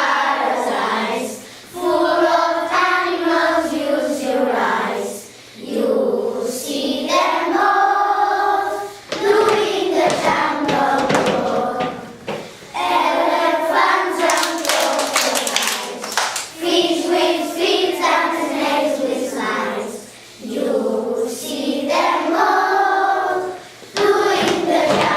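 A group of children singing a song together in unison, in phrases of a few seconds with short breaks for breath between them.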